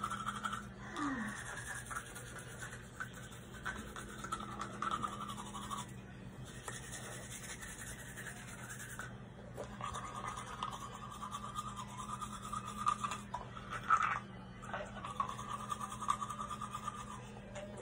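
A child brushing his teeth with a toothbrush: bristles scrubbing back and forth in two long stretches, with a lull of a few seconds in the middle, over a steady low hum.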